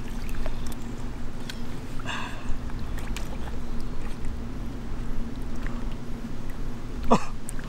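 Water sloshing and dripping with small splashes as a large common carp is lifted out of a landing net and handled in shallow creek water. Near the end comes a short sweep falling in pitch.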